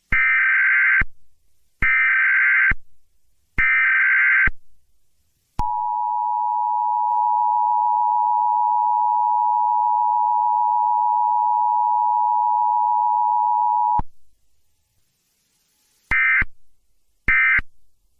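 Emergency Alert System broadcast tones. Three screeching SAME header data bursts, each about a second long, come first. The dual-tone attention signal follows, a steady two-note electronic tone held for about eight seconds that cuts off abruptly. Two short data bursts sound near the end.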